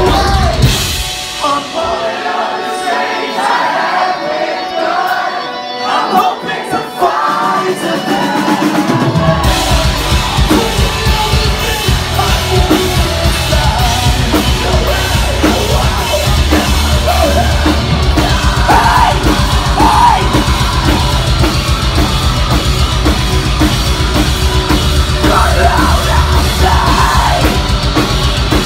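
Live metalcore band playing loud, with drums, distorted guitars and sung and yelled vocals. For the first several seconds the bass and drums drop out, leaving guitar and voices, then the full band crashes back in about nine seconds in.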